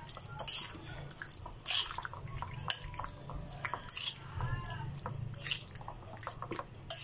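A fork stirring chunks of raw fish through a thick egg-and-flour batter in a ceramic bowl: wet squelching with scattered clicks of the fork against the bowl.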